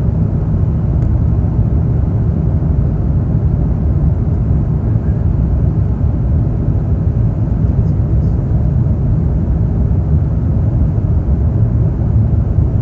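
Steady low rumble of an Airbus A350-900 heard from inside the passenger cabin.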